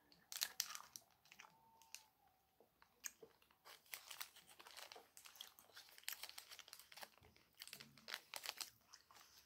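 Quiet crunching and chewing of a Lion White chocolate bar, its crisp wafer and crisped cereal crackling between the teeth after a bite. Near the end the bar's wrapper crinkles as it is peeled back.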